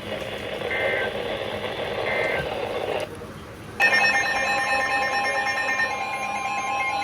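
Hissy broadcast audio with two short high beeps about a second and a half apart, then a brief drop, and about four seconds in the Emergency Alert System two-tone attention signal starts and holds steady, announcing a new emergency alert.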